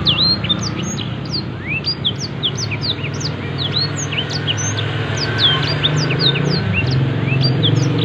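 Black-throated canary (blackthroat) singing a long, unbroken song of rapid, short, high whistled notes, each sliding up or down, over a steady low hum.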